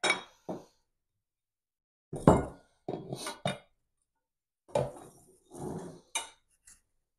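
Steel frame tubes of an elevated cot-style dog bed clinking and knocking together as they are fitted into the frame by hand, in a series of irregular short clatters.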